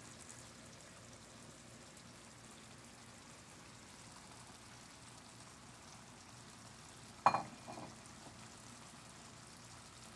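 Meat, peppers and pineapple simmering in sauce in a nonstick skillet, with a faint steady sizzle. A sharp clank comes about seven seconds in, followed by a smaller one just after.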